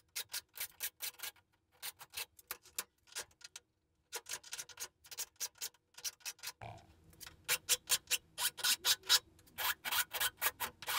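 Steel hand file rasping across the cutting teeth of a Makita chainsaw chain clamped in a vise, in quick short strokes, a few a second. It pauses briefly about four seconds in, then the strokes come louder and closer together in the second half: the chain being hand-sharpened tooth by tooth.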